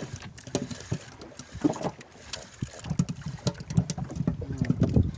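Irregular clicks, knocks and low thumps of rods and spinning reels being handled aboard a small wooden fishing boat, growing busier in the second half.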